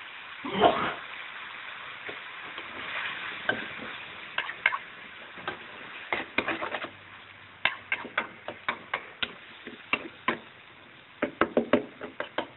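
Stir-fry of pork and vegetables sizzling in a non-stick wok, with a louder clatter about half a second in. A spatula then clicks and scrapes against the pan again and again as the food is tossed, most busily in the second half.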